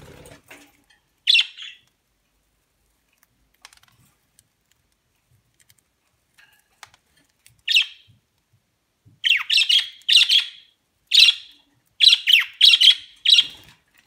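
Pet budgerigars calling with short, harsh chirps: one about a second in, another near eight seconds, then a quick run of about ten calls over the last five seconds.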